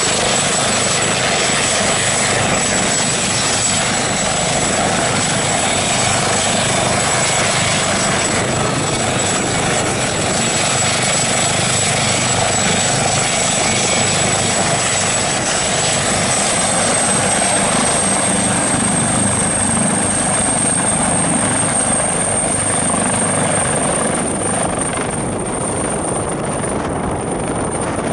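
AgustaWestland AW139 twin-turbine helicopter running on the ground at take-off power, with a steady high turbine whine over the rotor noise. The whine rises slightly in pitch past the halfway mark, and the helicopter lifts off near the end.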